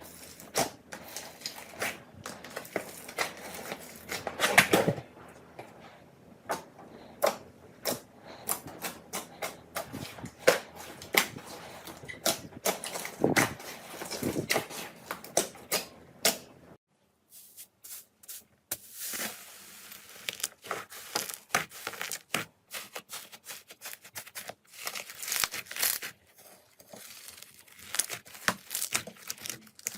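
Slime being squeezed and poked by hand, with a dense run of crisp clicks, pops and crackles. A little past halfway the sound breaks off briefly, then resumes with a sharper, hissier crackle.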